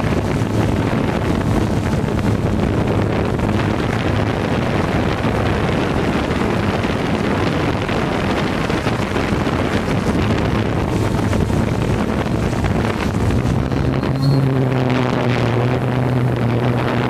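Hubsan quadcopter's motors and propellers running steadily, heard through its own onboard camera microphone as a hum buried in rushing prop wash. The hum steps up in pitch about 14 seconds in as the drone climbs.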